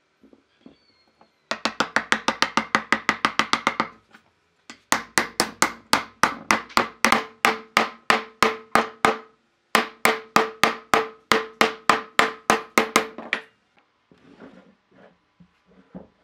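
Rapid, evenly spaced knocks, about eight a second, in three runs of a few seconds each with short pauses between, each knock ringing briefly.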